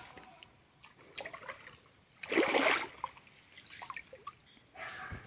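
Shallow water splashing and trickling, with one louder splash a little over two seconds in and a shorter one near the end.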